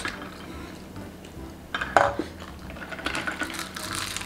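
Forks clinking and scraping on plates during a meal, with a louder clink about two seconds in.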